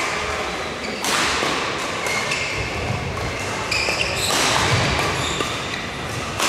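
Badminton doubles rally in a sports hall: a few sharp racket hits on the shuttlecock, about a second in and a little past four seconds, with shoes squeaking on the court floor in between.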